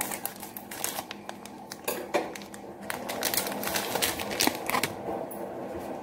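Scissors snipping through a plastic popcorn packet, a string of sharp clicks and snips, with the plastic packaging crinkling as it is opened and handled, more continuously in the second half.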